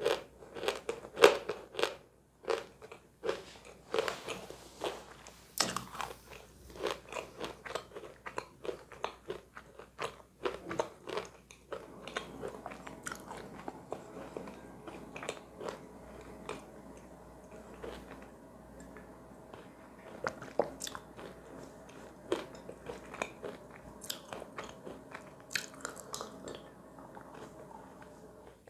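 Mouth biting and crunching through dry pieces of edible chalk, loud, sharp crunches for about the first twelve seconds. After that it settles into softer, quieter chewing of the softened mass, with an occasional crunch.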